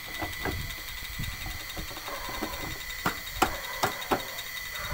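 Plastic washing machine tub halves being handled and pressed together by hand: low rubbing and shuffling, then four sharp plastic clicks and knocks about three to four seconds in.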